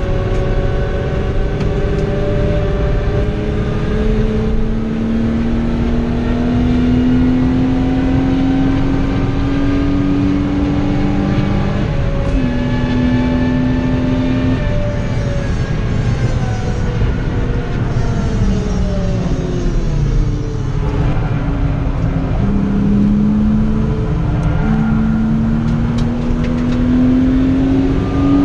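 BMW 323ti's straight-six engine heard from inside the cabin on a track lap: it pulls up through the revs, changes gear about twelve seconds in, drops away as the car slows, then climbs again through the gears near the end. Steady road and tyre rumble runs under it.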